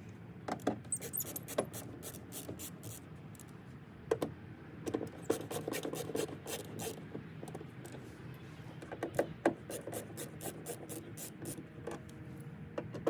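Screws being backed out of a car door speaker with a screwdriver: irregular clicks, scrapes and small knocks of metal and plastic.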